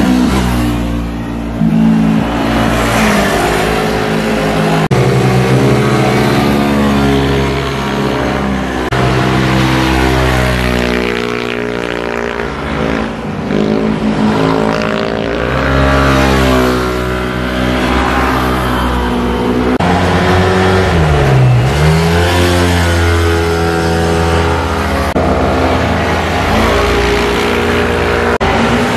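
Scooters and motorcycles riding through a hairpin bend one after another, their engines revving up and down in pitch as they slow for the corner and accelerate out. About twenty seconds in, one engine's pitch drops sharply and rises again.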